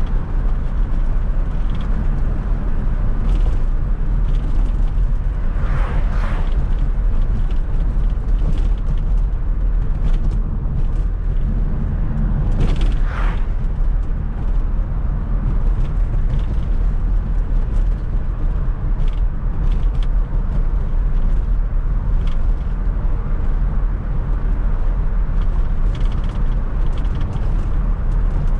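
1995 Fiat Coupe 2.0 16V Turbo being driven, heard from inside the cabin: a steady low engine and road drone, with a whine that sweeps in pitch about six seconds in and again around twelve to thirteen seconds, plus scattered short clicks.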